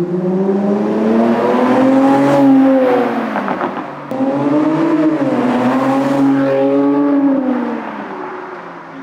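Dodge Challenger's engine through a stainless steel valvetronic catback exhaust, climbing in pitch and falling back twice, with a brief drop about four seconds in.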